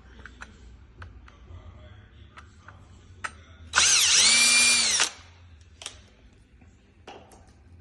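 Cordless drill run in one burst of about a second and a half, a little past halfway, its motor pitch dipping and recovering under load, as it drives screws on door lock hardware. Scattered light clicks and knocks of handling the lock parts come before and after.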